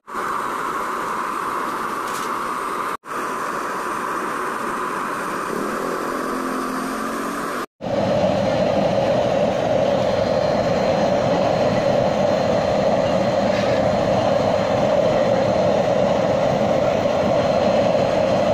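Used-oil stove burner running: a steady rushing noise of flame and air. The sound cuts out briefly twice, about three seconds in and again near eight seconds. After the second cut the noise is louder and deeper.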